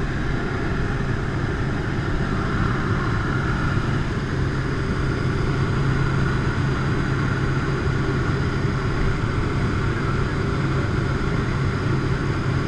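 Steady drone of a jump plane's engines and propellers heard from inside the cabin.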